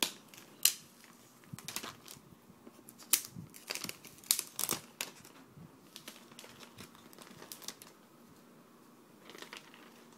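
Clear protective plastic film being peeled off a new laptop's aluminium underside and handled, crinkling in a run of sharp crackles during the first five seconds, then quieter, with a short crinkle again near the end.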